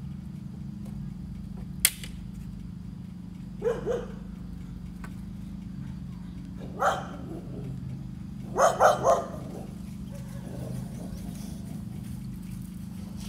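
A dog barking in short bursts: two barks about four seconds in, one near seven seconds, and three quick barks near nine seconds, over a steady low hum. A single sharp click comes about two seconds in.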